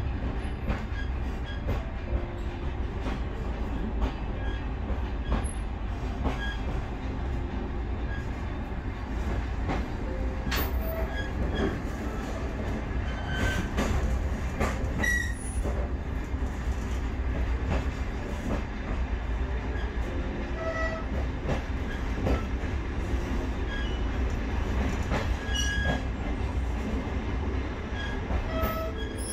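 Train running on the rails: a steady low rumble with scattered short squeaks and a few sharp clicks from the wheels and carriage.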